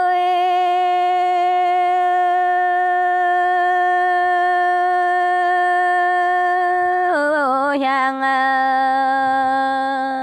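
A solo unaccompanied voice singing a Dao lượn folk song, holding one long steady note. About seven seconds in it dips with a short waver and settles on a lower note that it holds.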